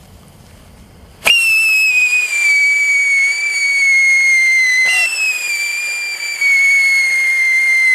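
Whistling 'siren torch' firework giving a loud, shrill whistle that starts about a second in and slowly sinks in pitch, breaks off for a moment near the middle, then starts again higher and sinks once more.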